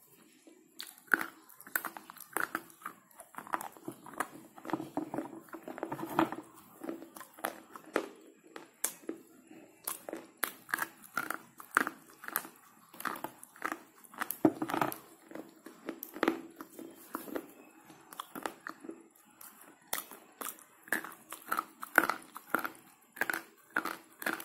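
Slate pencil being bitten and chewed with the front teeth: a run of short, sharp, dry crunches, about two a second.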